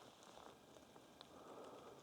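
Faint rain falling in a forest, with a few scattered drops ticking.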